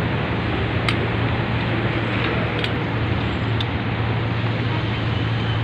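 Steady city street ambience: a constant rumble of road traffic with a low hum, and a few faint ticks.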